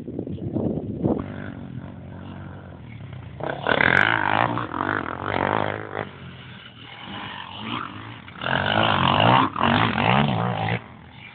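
Quad (ATV) engine revving in bursts, its pitch rising and falling as the throttle is worked; it gets loud about three and a half seconds in and again at about eight and a half seconds, easing off between.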